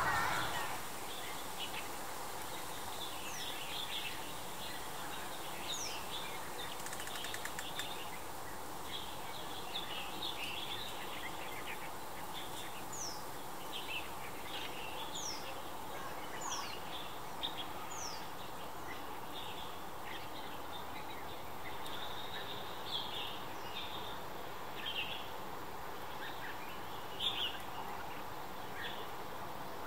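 Small birds chirping and calling on and off against a steady outdoor hiss, with a few thin, high notes falling in pitch during the first half.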